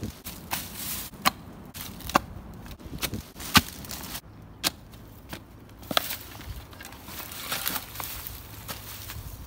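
A spade being driven into leaf-covered soil again and again: sharp strikes of the blade about once a second, with dry leaves crunching and crackling, then lighter crackling near the end.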